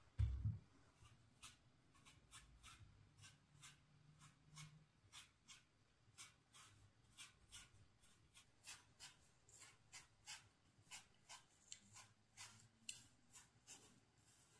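Faint, sharp taps or clicks at about two to three a second, with one dull low thump right at the start.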